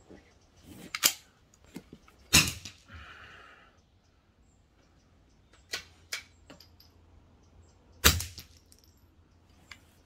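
AP80 .22 rifle being worked and fired: a few sharp cracks, the loudest about two and a half seconds in and near the end, with smaller metallic clicks of the action between them.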